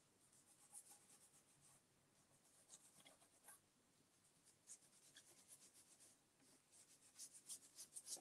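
Faint scratchy rubbing strokes as paint finish is worked onto an old file cabinet by hand, coming quicker and a little louder near the end.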